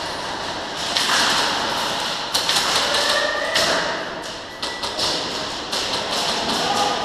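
Airsoft guns firing in irregular bursts: sharp clicks and thuds clustered together, at their thickest in the middle of the stretch.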